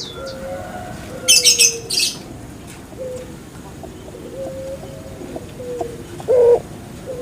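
Puter pelung dove (a domesticated Streptopelia risoria) cooing with low, drawn-out notes. A short burst of high chirping comes about a second in, and a louder coo note comes near the end.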